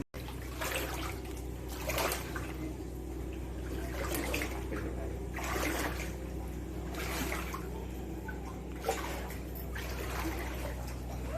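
River water sloshing and splashing in repeated surges about every second and a half, over a steady low hum.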